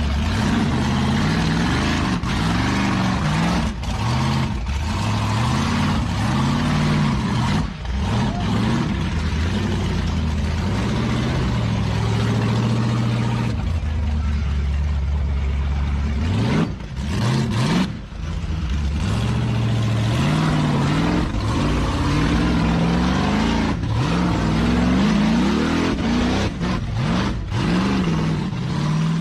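Off-road vehicle engines revving hard under load, their pitch climbing and dropping again and again, over a steady hiss of tyres and wind. There are brief breaks about 8 and 18 seconds in.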